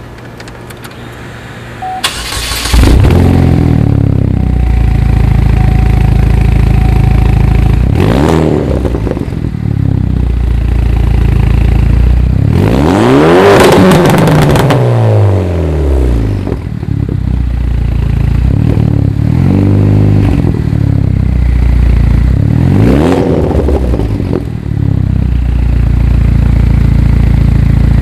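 2008 Chevrolet Cobalt SS's turbocharged 2.0-litre four-cylinder through an aftermarket turbo-back exhaust, starting up about two seconds in and then idling loudly. It is revved four times, each rev rising and falling back to idle, the highest about halfway through.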